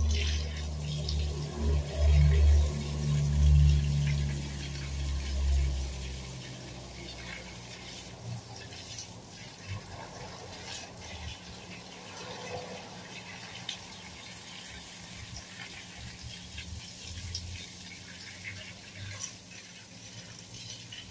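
Water from a garden hose spraying onto plants, a steady hiss with faint pattering and ticking. A loud low rumble runs under it for the first six seconds and then stops.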